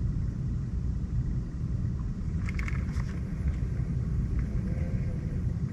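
A steady low rumble with a few light clicks about halfway through.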